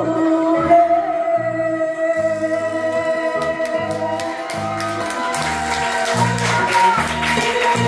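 A woman singing through a karaoke microphone and PA, holding a long note over a backing track with a steady stepping bass line. Near the end her voice stops and the backing music carries on.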